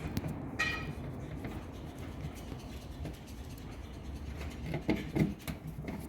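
Hand work on a washing machine's front panel: faint scraping and rubbing while the door switch screws are undone. There is a short high squeak about half a second in and a few brief sounds near the end.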